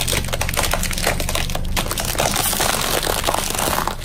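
Dense, continuous crunching and crackling as a car tyre rolls over and crushes brittle objects, with a steady low hum underneath.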